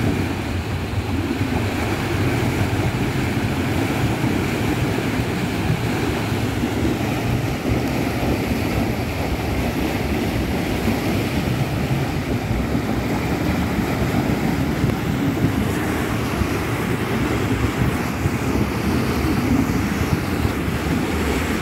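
Muddy water gushing up out of the ground from a burst underground pipe, a loud, steady churning rush of flood water.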